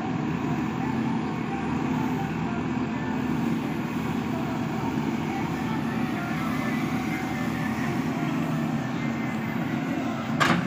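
JCB 3DX backhoe loader's diesel engine running steadily while the backhoe arm digs, lifts and swings a bucket of soil. A single sharp knock near the end.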